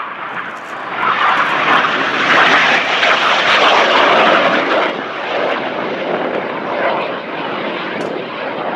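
Jet engine noise from BAE Hawk T1 display jets flying past, a loud rushing roar that swells in the first second, peaks over the next few seconds, then eases to a steadier lower level.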